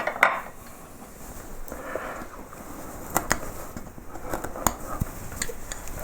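Small hand carving chisels and gouges cutting into wood: short scraping slices and a scatter of sharp clicks as the tool edge bites and pops out chips, setting back the background of a low-relief carving.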